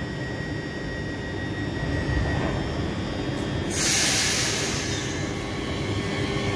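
Z 50000 Francilien electric train moving past in an underground station: a steady low rumble with a thin motor whine. About four seconds in, a loud hiss breaks out and fades over a second or so.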